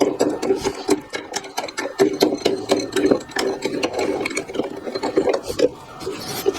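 Ratchet wrench clicking in quick, uneven strokes.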